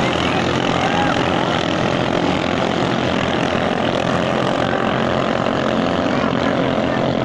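Engines of racing ketinting longtail boats running in a steady, loud drone.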